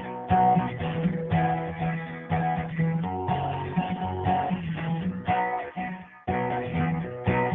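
Acoustic guitar strummed in an instrumental break, chords struck in a steady rhythm with a brief gap about six seconds in.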